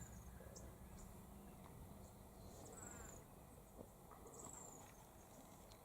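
Near silence: quiet outdoor ambience with a low hum, broken by about three faint, short, high-pitched falling trills.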